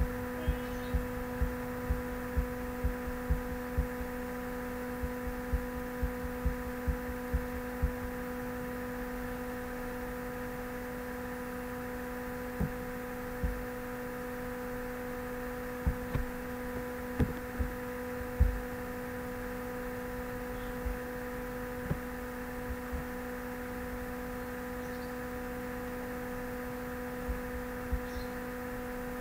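Steady electrical hum made of several fixed pitched tones. Soft low thumps sound about twice a second for the first eight seconds, then only now and then.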